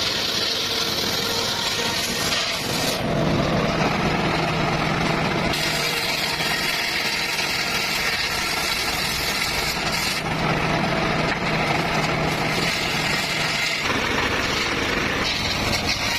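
Circular saw cutting petung bamboo, running steadily. Its tone changes about three seconds in, again near ten seconds and near fourteen seconds as the cut goes on.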